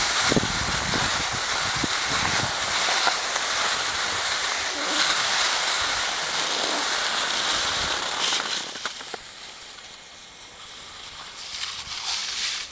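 Skis sliding and scraping over packed snow, a steady hiss with wind rumbling on the microphone. The hiss drops away about eight or nine seconds in, leaving a few faint knocks.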